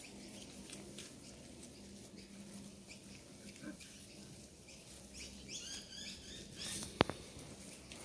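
Seven-week-old Doberman puppies play fighting on grass: faint scuffling and rustling, with a quick run of high squeaky cries about six seconds in. A single sharp click sounds about a second later.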